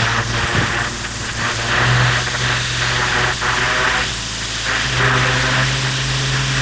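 Pressure-washer lance spraying a high-pressure jet onto concrete patio slabs, a dense hiss of water that pulses as the jet moves, over the steady hum of the pressure washer's engine, which swells and eases in loudness a few times.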